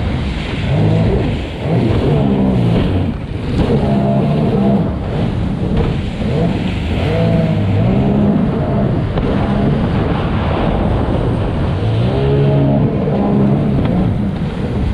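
Sea-Doo Spark personal watercraft, each with a three-cylinder Rotax engine, racing: the engine pitch climbs and drops back again and again as the throttle is worked, over a steady rush of noise.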